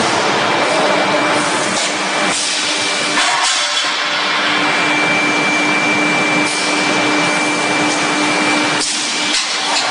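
Automatic forging line with robot and presses running: a loud, steady hissing noise with a steady low hum and a thin high whine over it, broken by a few brief knocks and shifts about two and a half, three and nine seconds in.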